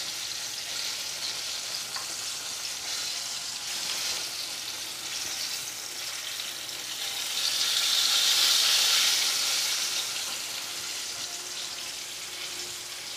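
Breaded chicken cutlet deep-frying in hot oil in a pan: a steady sizzle. It swells louder for a couple of seconds past the middle as the cutlet is turned with tongs and laid back into the oil.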